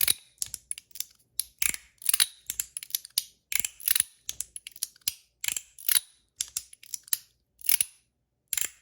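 Mackie brass-and-zirconium haptic fidget sliders clicking as they are slid back and forth, the mechanical and magnetic detents snapping into place. The clicks are sharp, bright and irregular, about three a second, with a short pause near the end.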